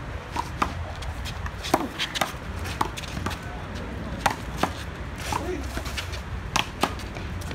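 A one-wall handball rally: a rubber handball is slapped by gloved hands, smacks off the concrete wall and bounces on the concrete court. It makes about a dozen sharp cracks at uneven intervals.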